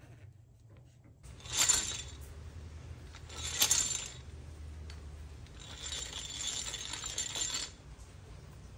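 Restored Stanley hand drill being cranked in three short spins, its metal gears whirring and clinking; the last spin is the longest, about two seconds.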